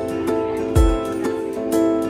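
Instrumental music of steady pitched notes, with a deep drum hit just under a second in.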